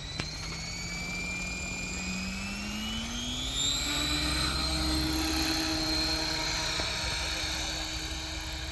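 Electric RC helicopter's motor and rotor whining as it spools up for take-off. The pitch climbs about three seconds in, then holds steady at flight speed.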